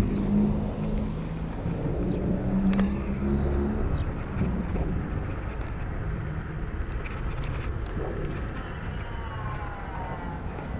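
Road traffic: cars passing close by on a multi-lane road, a steady engine-and-tyre hum, with a falling whine near the end.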